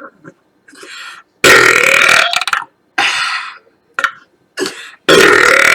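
A woman burping: two long, loud burps, one about a second and a half in and a louder one near the end, with shorter, softer sounds between them.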